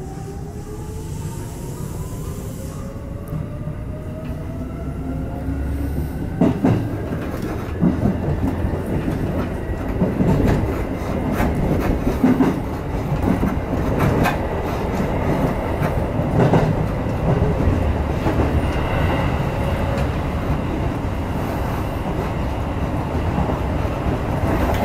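Seibu electric commuter train pulling away from a station, heard from the driver's cab: a motor whine rising steadily in pitch over the first few seconds as it accelerates. It then settles into a rumble of wheels on rail, with sharp clacks over joints and points about every two seconds.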